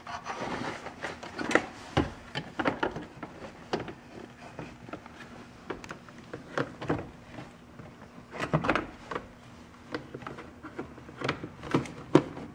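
Hard plastic lower dash trim panels of a 2000 Honda Civic being handled and fitted into place around the steering column: irregular clicks, knocks and plastic rustling, with a burst of rustling in the first second.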